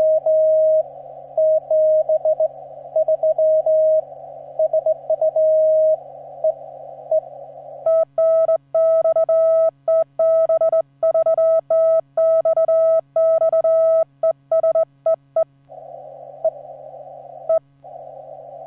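Morse code (CW) tones at a single pitch from a shortwave transceiver. For the first eight seconds a received signal keys on and off in the hiss of a narrow CW filter. Then the operator's own sidetone, sent by hand on a straight key, comes in as a clean tone with silence between the dots and dashes. Plain receiver hiss returns near the end.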